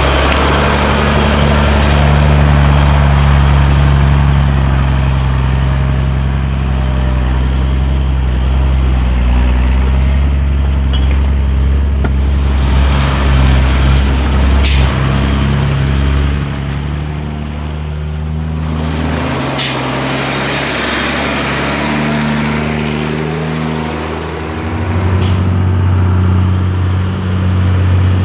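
Mercedes Unimog U1700L truck's diesel engine running under load as it drives slowly. Its note drops and rises several times as the revs change, with a few brief sharp clicks along the way.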